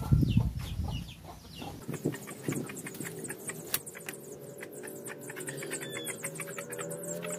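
Chickens clucking. About two seconds in, background music comes in with a regular high ticking beat and held tones.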